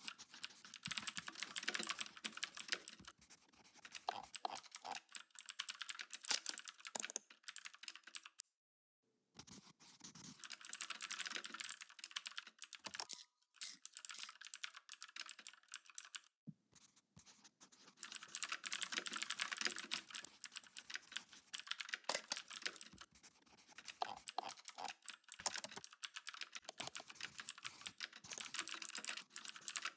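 Typing on a computer keyboard: rapid runs of key clicks in bursts, broken by short pauses, with one brief complete silence about nine seconds in.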